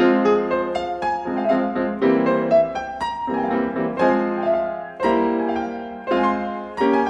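Background piano music: chords and melody notes struck about once a second.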